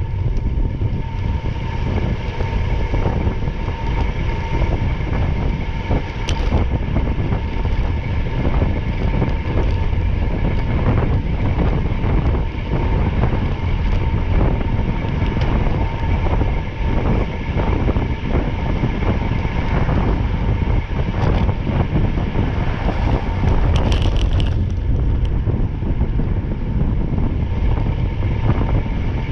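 Steady rumble from inside a moving vehicle, with a constant hum and frequent small rattles and clicks.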